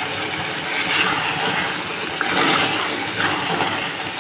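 Potato and green-onion curry sizzling and bubbling on high heat in a pot while a spatula stirs it; a steady hiss that swells a little now and then.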